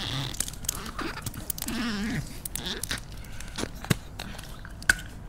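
Small clicks and crackles of a plastic drink bottle's screw cap being twisted open, with a short wavering voice sound about two seconds in and one sharp click near the end.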